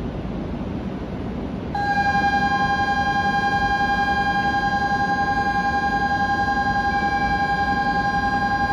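Electronic platform departure bell ringing steadily, starting about two seconds in, several held tones with a fast shimmer, over a steady low hum from the standing E2 series Shinkansen and the station.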